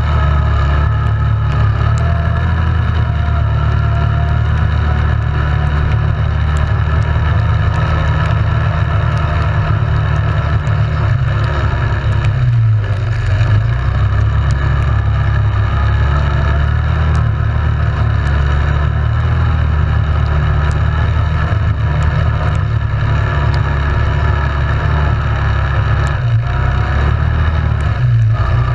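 ATV engine running steadily under way, its pitch rising and falling slightly as the throttle varies.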